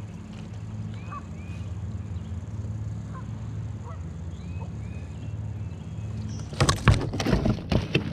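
A few short honking bird calls over a steady low hum. Near the end comes a quick run of sharp knocks and rattles as the landing net and pliers are handled in the kayak.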